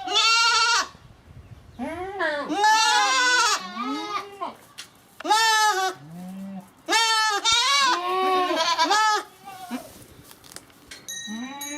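Goats bleating: a series of loud, wavering bleats, some overlapping as more than one goat calls at once, with one short, much lower-pitched call about halfway through.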